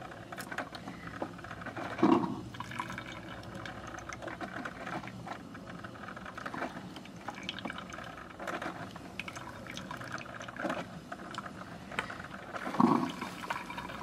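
DeLonghi kMix drip coffee maker brewing: hot water gurgling and dripping through into the filter basket, with two short louder bursts, about two seconds in and near the end.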